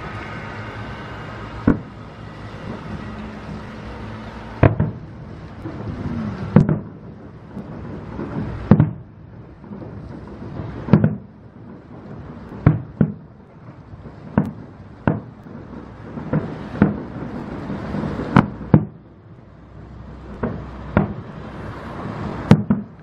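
Aerial fireworks shells bursting in an irregular series of sharp bangs, roughly one every second or two, over a low rumble.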